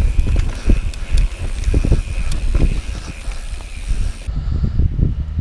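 Mountain bike riding fast down dirt singletrack: tyres rumbling over the ground, with the bike rattling and knocking over bumps and wind buffeting the camera microphone. The high hiss cuts off abruptly about four seconds in, and the rumble and rattling carry on.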